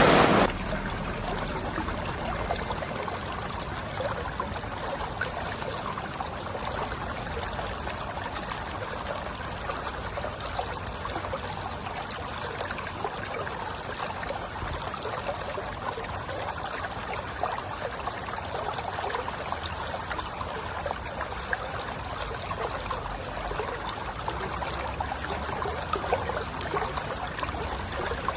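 River water flowing and gurgling over rocks, a steady trickling rush. A louder, fuller rushing sound drops away about half a second in.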